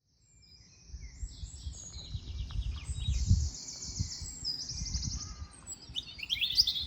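Birdsong outdoors: a run of high, fast-pulsed buzzy trilled phrases, one after another and overlapping, then a quick flurry of falling notes near the end. A low rumble runs underneath.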